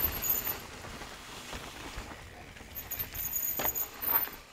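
Mountain bike rolling over a dirt singletrack trail: tyre noise and the rattle of the bike over the trail surface, with a couple of sharp knocks near the end.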